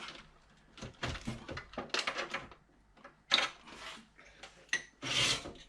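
Scraping and clicking of a drive being worked loose from its bay in an old PC case after its cable is unplugged, in several short irregular bursts.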